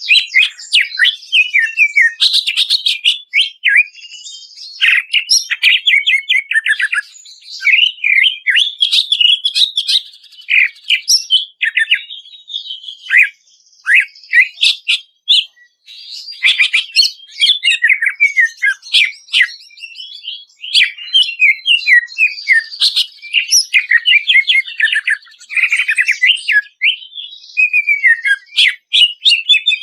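Cucak ijo (green leafbird) singing a long, loud, varied song of rapid chirps, trills and sliding whistled notes, with a few short pauses around the middle.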